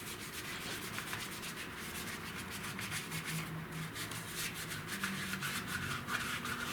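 Seat belt webbing being scrubbed by hand with wax and grease remover to degrease it: quick, repeated rubbing strokes.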